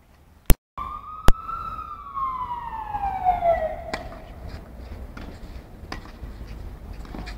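Two sharp cracks about half a second and a second in. Then a high wailing tone climbs briefly and slides down in pitch over about two seconds. Tennis rackets strike the ball about four and six seconds in.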